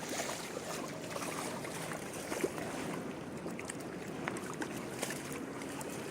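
Rain falling steadily, with many small scattered drop impacts.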